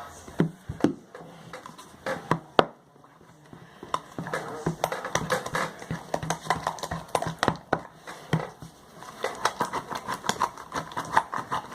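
A spatula stirring glue slime in a bowl: quick, irregular sticky clicks and taps, a few at first, then a dense run of them from about four seconds in.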